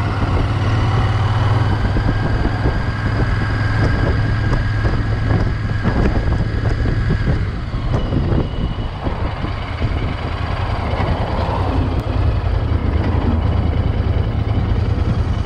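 Royal Enfield Interceptor 650's parallel-twin engine running steadily under way in city traffic, easing off briefly about eight seconds in and then pulling again.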